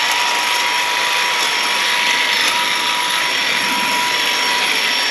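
Motorised power tool running steadily at speed while olive tree branches are pruned, with a steady high whine over a dense buzz.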